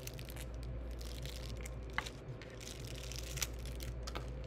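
A tipless plastic piping bag filled with royal icing being massaged in the hands: soft crinkling and crunching of the plastic, with a couple of sharper ticks, over a low steady hum. The kneading mixes the icing back together before the tip is cut.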